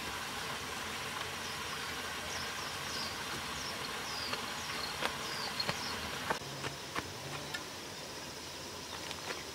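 Outdoor rural ambience: a steady hum of insects with a small bird giving a run of short, falling chirps, and a few scattered footsteps and rustles in grass.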